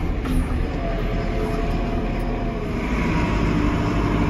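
Diesel engine of a JCB telehandler running steadily, heard from inside the cab. It picks up slightly about three seconds in.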